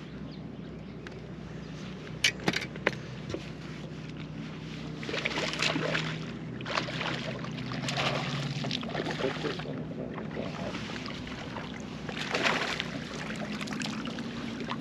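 Water splashing in several bursts as a hooked largemouth bass thrashes at the surface during the fight, over a steady low hum. A couple of sharp clicks come about two seconds in.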